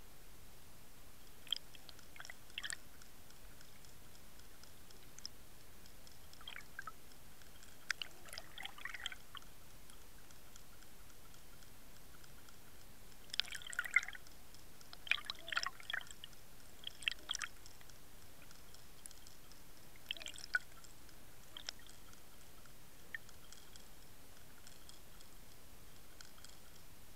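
Scattered small clicks and crackles heard underwater through a submerged camera, coming in short clusters that are densest in the middle, over a steady faint hiss.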